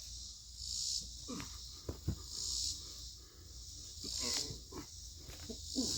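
A chorus of insects buzzing in steady pulses, swelling about every second and a half, with scattered knocks and scrapes from heavy cedar logs being handled; the sharpest knocks come about two seconds in and near the end.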